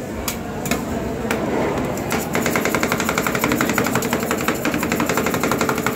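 Metal spatulas on the frozen steel plate of a rolled ice cream cold pan: a few separate scraping strokes, then from about two seconds in a rapid, steady clatter of two spatula blades chopping the ice cream mixture against the plate.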